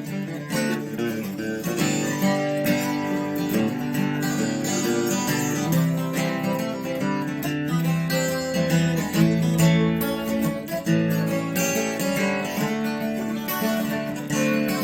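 Instrumental country song break led by strummed acoustic guitar, with other instruments holding steady chords.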